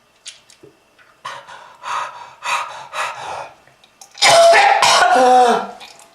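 A person coughing: a run of about four short coughs, then, about four seconds in, one long, loud cough with the voice in it sliding down in pitch. It is a heavy smoker's cough.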